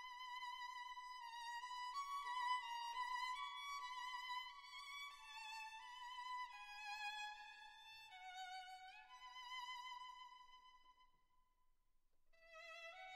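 Background music: a slow solo violin melody with vibrato and sliding notes, dipping into a short pause near the end before a new phrase begins.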